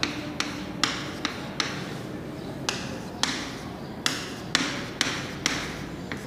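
Chalk tapping and scratching on a blackboard as numerals are written: about a dozen short, sharp taps, roughly two a second, a few drawn out into brief scratchy strokes.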